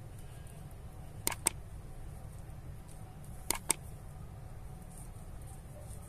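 Mouse-click sound effects from an animated like/share/subscribe overlay: two double clicks, each pair a fraction of a second apart, the first about a second in and the second a couple of seconds later, over a steady low hum.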